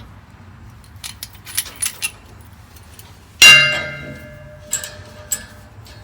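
Metal hose fittings and valve hardware clinking a few times, then one loud metal clang that rings on for about a second, followed by two lighter clicks.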